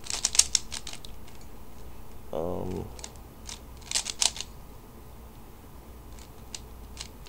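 Plastic Rubik's Cube layers being turned by hand, making quick clacks in short irregular clusters.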